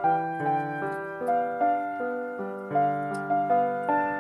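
Background piano music: a gentle melody of single notes over soft chords, each note struck and then fading, a new one about every half second.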